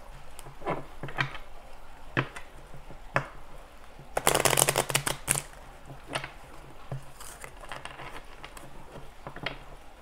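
Deck of tarot cards being shuffled by hand: a few sharp taps and slaps as packets are cut and dropped together, then a riffle shuffle, a quick ripple of cards lasting about a second, a little after four seconds in, followed by lighter taps as the deck is squared.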